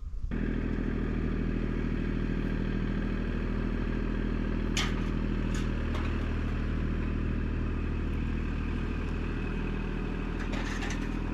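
An engine running steadily at a constant speed, with a couple of sharp metallic clicks about five seconds in and some clatter near the end.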